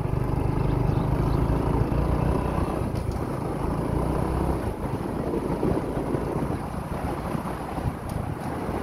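Motorbike riding along at a steady speed, its engine running under a rush of wind on the microphone; a little past halfway the steady engine hum drops back and the rougher wind noise takes over.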